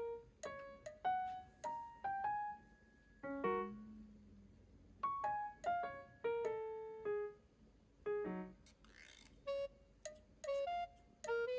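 Background music: a light, sparse piano or electric-piano melody of single notes that each fade out quickly.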